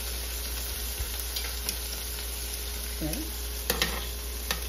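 Lamb chops sizzling steadily in hot oil in a cast-iron skillet, with a few sharp clicks of metal tongs near the end as the chops are lifted out.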